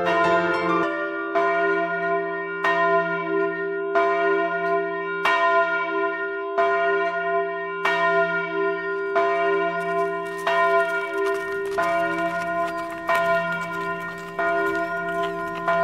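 A church bell tolling slowly and evenly, about one strike every 1.3 seconds, each strike ringing on into the next. A piano fades out in the first second.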